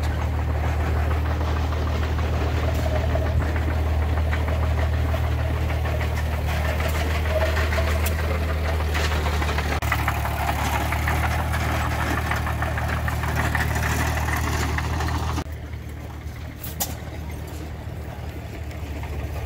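An engine idling with a steady low hum that stops abruptly about fifteen seconds in.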